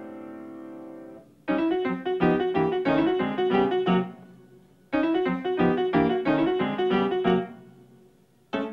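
Solo piano accompaniment in the silent-film manner. A held chord fades out, then come two quick, lively runs of notes, each lasting about two and a half seconds and dying away, and a third run starts just at the end.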